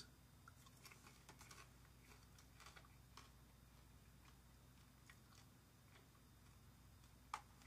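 Faint chewing of a piece of stale, chocolate-drizzled popcorn, with soft crunches over the first three seconds. A single click near the end.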